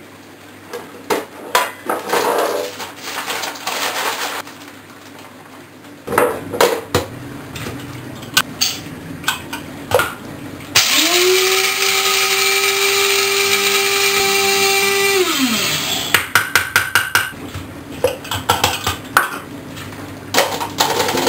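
A small electric coffee grinder runs for about five seconds in the middle, its motor tone rising as it spins up and falling away as it stops. Before and after it come clicks and knocks of handling on the counter, with a quick run of taps after the grinding.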